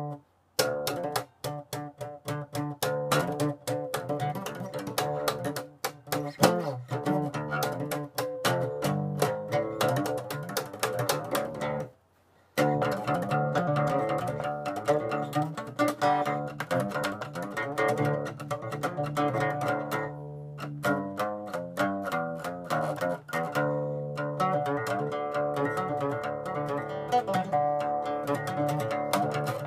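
Acoustic guitar playing an instrumental piece in a run of quickly picked notes. The sound breaks off briefly twice, once just after the start and once about twelve seconds in.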